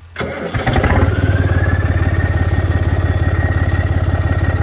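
A John Deere tractor's diesel engine being started: a click, then it catches within about a second and settles into a steady run. A whine rises as it comes up to speed and then holds level over the engine.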